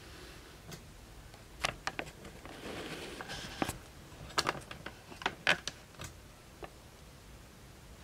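Scattered sharp clicks and light knocks of handling, with a short rustle about two and a half seconds in.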